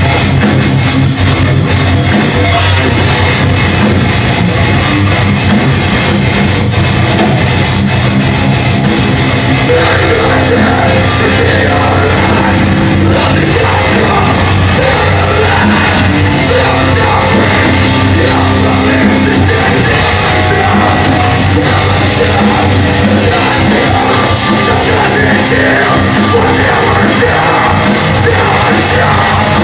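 Heavy metal band playing live and loud: distorted electric guitars, bass and drums, with singing.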